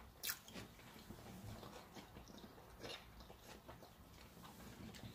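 Faint chewing and soft mouth smacks of people eating sushi rolls, with a few small scattered clicks.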